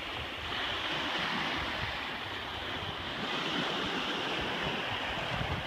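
Small waves washing onto a pebble beach, a steady surf noise, with wind buffeting the microphone.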